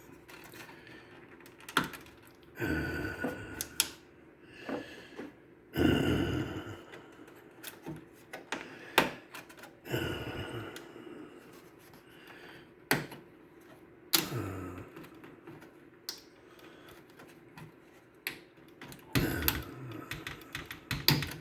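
Irregular plastic clicks, taps and short scrapes of hands working inside an opened cassette deck, pulling wire connectors off the tape mechanism.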